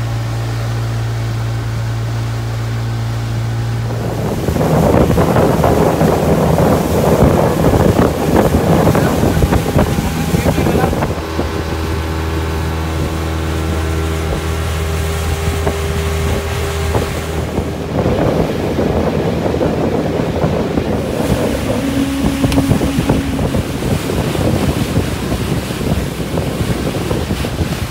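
Small boat's outboard motor running steadily under way. From about four seconds in, wind buffets the microphone and water rushes along the hull over the motor's steady hum.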